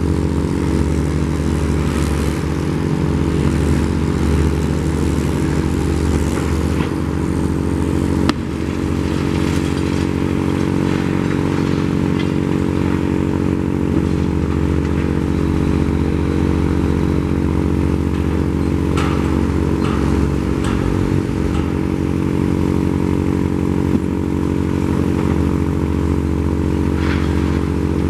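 Diesel engine of a crawler crane running steadily, with a sharp knock about eight seconds in and occasional clatter and scraping.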